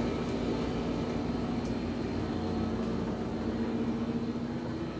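Steady mechanical hum of a running appliance, with a low rumble under a faint steady whine.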